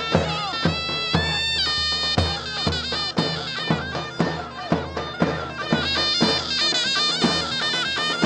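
Zurna playing a shrill, ornamented folk dance melody over a steady davul beat of about two strokes a second.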